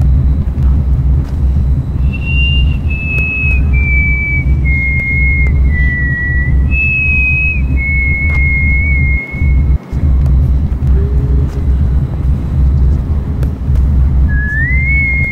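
Background music: a high, whistle-like melody of long held notes stepping down in pitch over a deep, steady drone. The melody drops out for a few seconds after about nine seconds and comes back near the end with a rising note.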